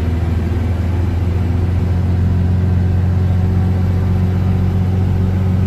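Diesel engine of a Mercedes-Benz 1218 truck running steadily under way, a loud low drone heard from inside the cab, its note filling out slightly about a second in.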